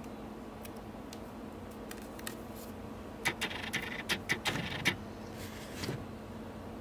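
A quick run of small clicks and crackles from about three to five seconds in, as a hand works at a strip of hard wax on the forearm and the wrist flexes under it, over a steady low hum.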